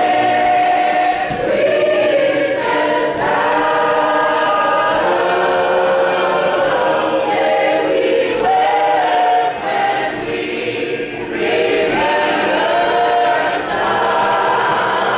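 Choir singing together, many voices holding long notes.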